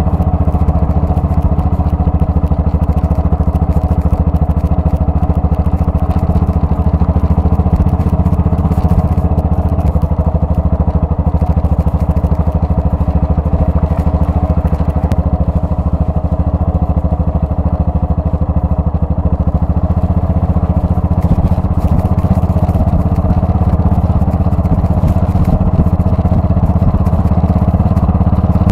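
Yamaha XT660R's single-cylinder four-stroke engine running steadily as the motorcycle is ridden along, heard from the handlebars.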